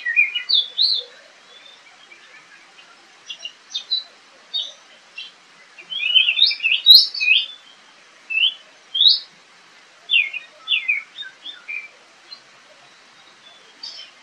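Oriental magpie-robin singing: phrases of clear whistled notes and quick slurred glides, some rising and some falling, broken by short pauses, with the densest run of notes about six to seven and a half seconds in.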